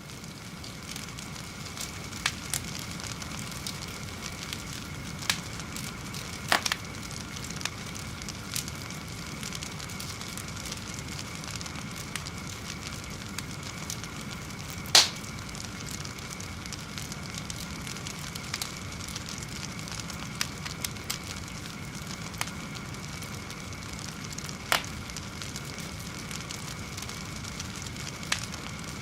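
Fire burning with a steady hiss and crackle, broken by scattered sharp pops, about eight in all; the loudest comes about halfway through.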